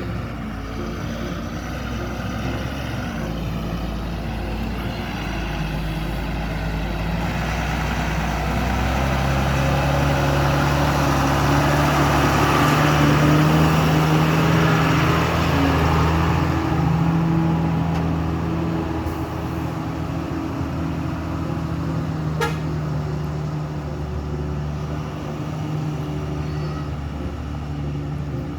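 Heavy diesel engine of earth-moving machinery running, getting louder toward the middle as it works harder, then easing back to a steady run.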